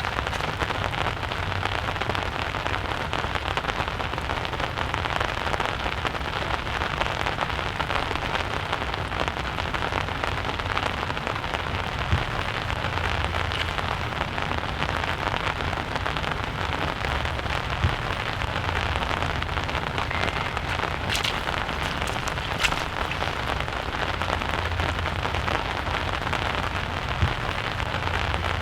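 Steady rain falling, with a few single sharp taps spread through it.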